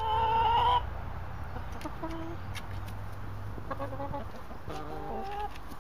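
Brown hens clucking: one loud drawn-out call in the first second, then several short, quieter clucks.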